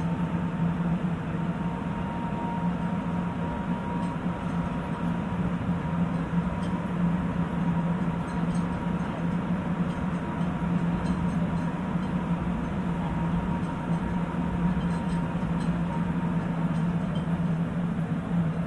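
Sapporo Municipal Subway Tōzai Line 8000-series rubber-tyred train running at a steady speed, heard from inside the car. There is a steady low rumble with a faint constant whine above it.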